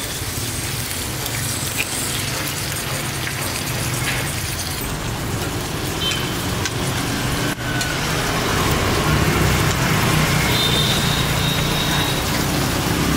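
Steady sizzling hiss of beef steak frying on hot iron plates, with a low engine rumble of traffic growing louder in the second half.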